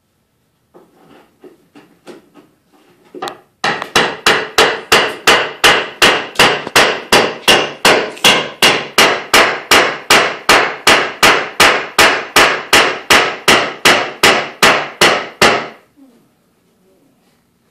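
Hammer striking wood in an even, steady run of about three blows a second, beginning a few seconds in after some lighter taps and stopping shortly before the end.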